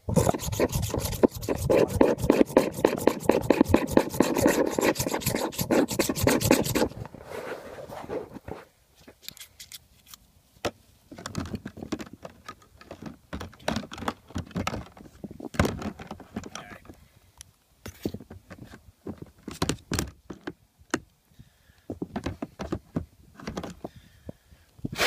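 Rapid scraping and rubbing, loud for about the first seven seconds, as a quarter-inch drill bit is worked inside a soapy spray-gun tip to clear built-up bed-liner residue. After that come scattered quieter clicks and light scrapes of parts being handled.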